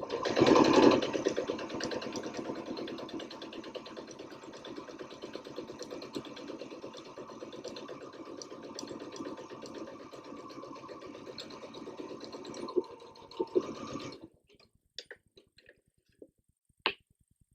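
Sewing machine stitching a seam at a steady run for about fourteen seconds, then stopping abruptly; a few light clicks follow.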